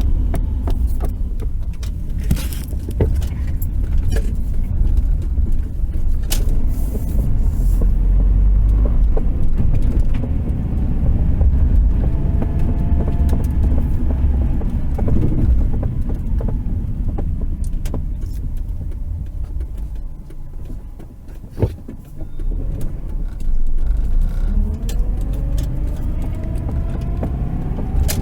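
Inside the cabin of a 1993 Subaru Impreza with the 1.8 L EJ18 engine, driving slowly: a steady engine and road rumble with irregular sharp pops from somewhere in the middle of the dashboard. The popping is an unidentified fault that shows up only once the car is warm after highway driving and has slowed down. The engine note rises near the end.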